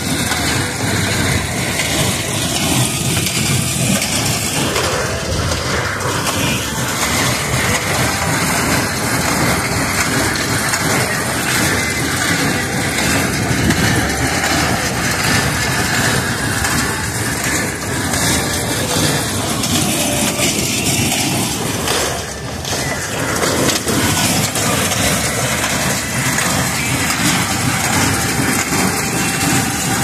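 New Holland 315 small square baler running behind a Kubota tractor while baling hay, with the baler's mechanism and the tractor's engine together making a loud, steady mechanical noise.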